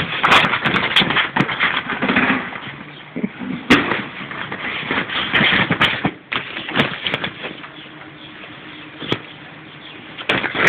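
Inflatable plastic pig toy being bitten and shaken by a dog: the plastic crinkles and crackles with sharp snaps in quick bursts, easing off for a few seconds after about six seconds in, then starting up again near the end.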